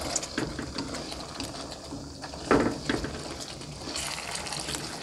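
A slotted plastic spatula stirring pork balls through thick green curry in a non-stick wok: wet sloshing of the sauce with small clicks of the spatula on the pan. There is one louder scrape about two and a half seconds in.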